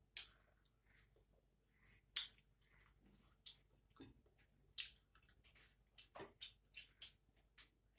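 Close-miked eating sounds: irregular wet smacks and clicks of lips and mouths chewing, with the loudest smacks about a quarter second in and near five seconds in.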